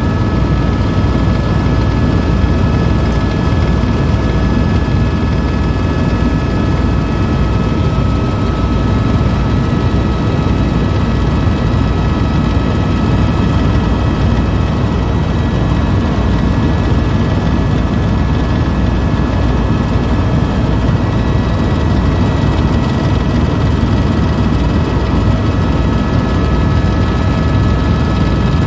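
Helicopter in flight: a loud, steady rumble of rotor and engine, with a few faint steady whining tones above it.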